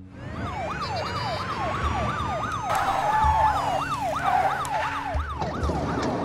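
Police car sirens sounding together: a fast yelp sweeping up and down about three or four times a second, over a slower wail that rises and falls.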